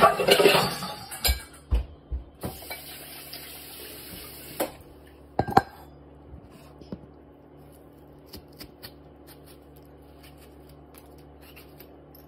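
Kitchen clatter of dishes and utensils in the first couple of seconds, then a few seconds of hiss and a few sharp clicks. After that come soft scattered clicks and scrapes as bitter melon is handled on a plastic cutting board, over a steady low hum.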